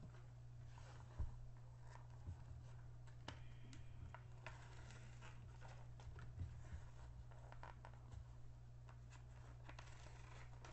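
Faint rustling and crinkling of a plastic-covered diamond painting canvas being unrolled and pressed flat on a table, with a few light taps, over a steady low hum.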